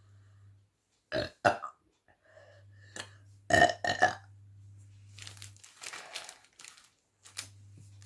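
A woman burping after drinking carbonated Thums Up cola. There are short loud burps, two about a second in and two more about three and a half seconds in, followed by softer breathy noise.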